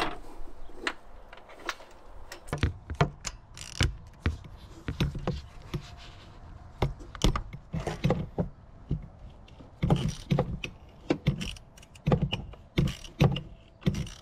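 Irregular metal clinks and knocks of a chrome socket and extension being handled and fitted down onto a spark plug in a truck's engine bay, growing more frequent about two and a half seconds in.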